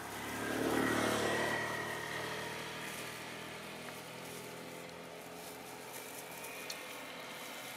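A motor vehicle engine passing by, growing louder to a peak about a second in and then fading to a steady distant hum.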